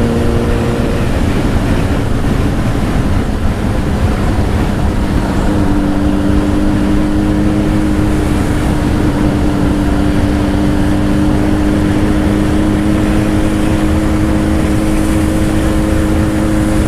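Honda CBR1000's inline-four with a Two Brothers aftermarket exhaust, riding at speed. The engine note breaks off about a second in, then holds a steady pitch from about five seconds in, under heavy wind noise on the helmet mic.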